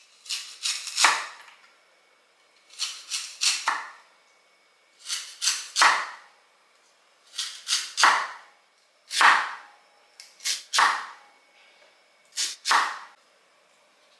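Blade strokes scraping along a lotus root, in quick groups of two to four, a group about every two seconds, each stroke sweeping down in pitch.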